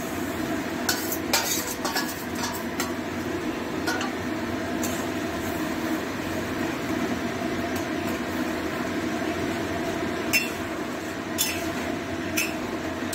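Steel spoon stirring chili chicken sauce in a steel kadai as the sauce is thickened with cornflour slurry, over a steady sizzle. The spoon clicks and scrapes against the pan in a cluster early in the stirring and again near the end.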